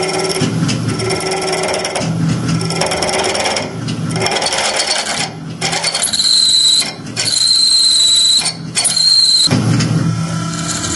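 A 1/2-inch TiN-coated high-speed-steel twist drill boring 17-4 PH stainless steel in a CNC mill, its cutting noise swelling and falling about once a second. From about six seconds in, a loud high-pitched squeal comes in three stretches, the sign of the drill struggling in the stainless at a 1.05 in/min feed, a run that failed. Near the end the lower pulsing drilling noise resumes.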